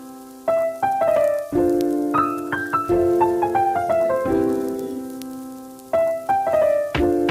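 Background piano music: a slow melody over chords, each note left to ring and fade before the next phrase begins.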